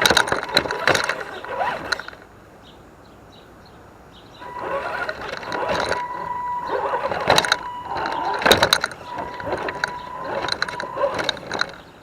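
Axial SCX10 DeadBolt RC crawler driving in two spells, a short one at the start and a longer one from about four seconds in. Its electric motor and gears give a steady high whine, mixed with knocks and crunches of the tyres and chassis on rock.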